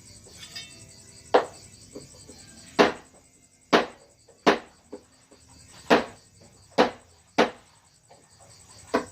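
Mallet striking a carving chisel into wood, eight sharp knocks at an uneven pace of about one a second.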